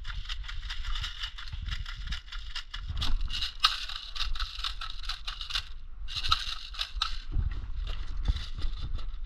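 Rapid, dense plastic clicking from an airsoft magazine being worked by hand, a ratchet-like run of clicks that pauses briefly about six seconds in and then starts again; a low rumble of wind on the microphone lies under it.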